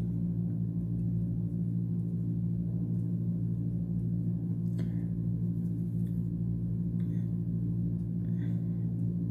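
Steady low hum made of several held tones, unchanging throughout, with a faint tick about five seconds in.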